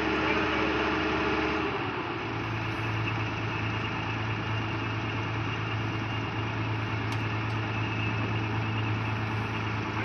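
Combine harvester with its straw-chopping (bhusa-making) unit running steadily: a dense, continuous machinery drone while chopped wheat straw is blown out of the discharge chute. Nearly two seconds in, the hum shifts lower as a higher tone drops away and a deep steady hum takes over.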